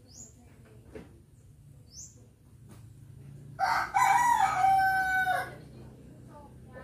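A rooster crows once, a single call of nearly two seconds, starting about halfway through.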